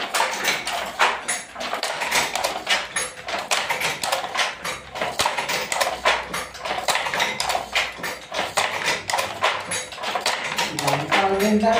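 Wooden pit handloom being worked: a steady run of wooden clacks and knocks from the beater, shuttle and treadles, several a second, in a machine-like rhythm.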